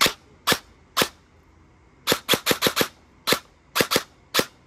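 Airsoft electric gun firing about a dozen sharp single shots, some spaced out and some in quick runs of four or five, draining the battery under test.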